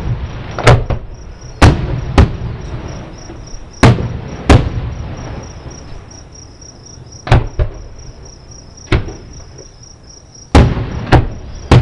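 Fireworks shells bursting about a mile away: about a dozen sharp booms at irregular intervals, each trailing off in a rolling echo, with several close together near the start and a pair near the end. Crickets chirp steadily underneath.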